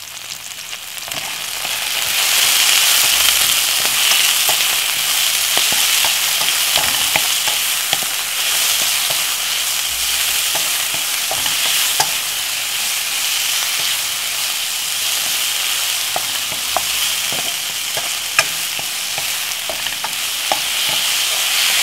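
Sliced bell peppers and onions sizzling in olive oil in a nonstick frying pan, swelling over the first two seconds and then steady, with the scattered clicks and scrapes of a wooden spoon stirring them.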